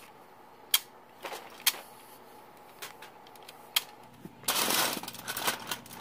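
Plastic parts of a Teach Tech Mach 5 robot kit being handled and pressed together: several sharp separate clicks, then a denser half-second spell of clicking and rubbing about four and a half seconds in.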